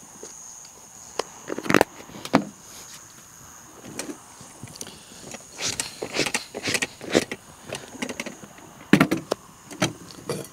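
Hands handling fishing tackle and bait close by: irregular clicks, knocks and rustles, clustered about two seconds in, around the middle and near the end, over a steady high thin tone.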